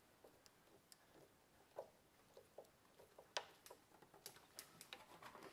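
Faint, irregular clicks and ticks of a screwdriver tightening a metal hose clamp on a silicone turbo intake hose.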